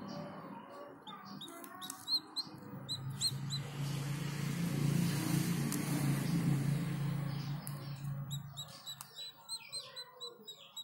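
Small birds chirping in short, high, repeated chirps, in two spells. Under them a low steady hum swells through the middle and stops about nine seconds in. A few sharp clicks come from eggshell being picked off.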